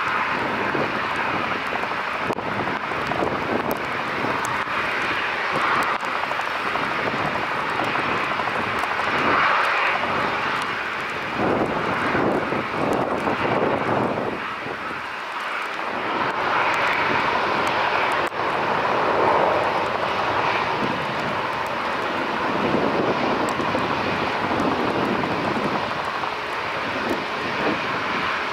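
Jet engines of an Airbus A320-family airliner running steadily, heard from a distance as it taxis and then powers up for take-off. The sound is a continuous rushing noise with a brief lull about halfway through.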